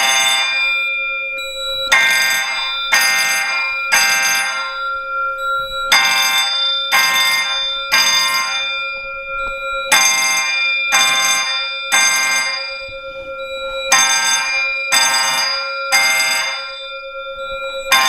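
Simplex horn, sounding through a double horn projector, and a Wheelock fire alarm bell going off together in a code-3 temporal pattern: three loud pulses about a second apart, then a pause, repeating about every four seconds. This is a fire drill set off from the fire alarm control panel.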